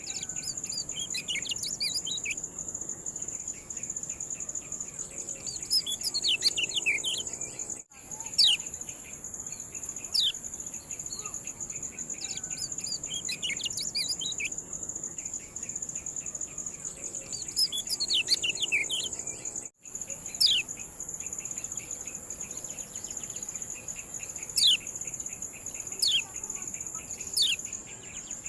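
Kecial kuning (yellow-spectacled white-eye) giving its sharp ciak calls: clusters of quick, high, downward-sweeping chirps every few seconds, over a steady high-pitched buzz. The calls come from a looped training recording, with brief cut-outs twice.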